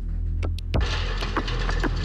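Factory production machinery running: a steady low hum with a few sharp metallic clicks, and a hiss coming in about halfway through.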